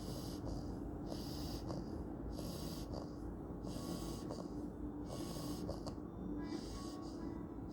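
Snoring in sleep: soft, hissy breaths in and out, about one a second, over a steady low hum.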